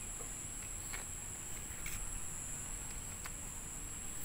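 Steady high-pitched insect chirring, with a few faint short clicks.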